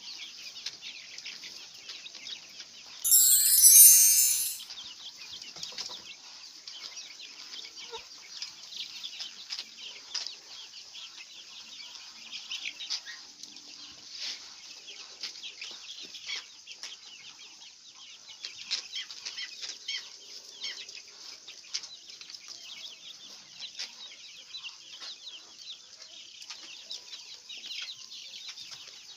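Chickens in a poultry house: a steady, dense chatter of clucks and peeps. A loud burst of noise lasting over a second comes about three seconds in.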